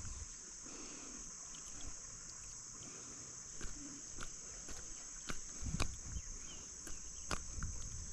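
Steady high-pitched trilling of insects, a constant drone throughout, with scattered sharp clicks and a few soft low thumps around the middle.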